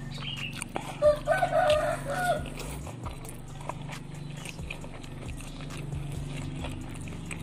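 A rooster crowing once, about a second in, a pitched call in three linked parts lasting just over a second. Faint clicks of eating come before and after it.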